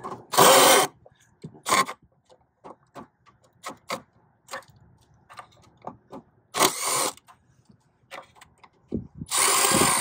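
Milwaukee cordless drill driving screws out of a condenser fan's hub plate in four short bursts: a loud one just after the start, a brief one before two seconds, one around seven seconds and a longer one near the end. Light clicks and taps come in between.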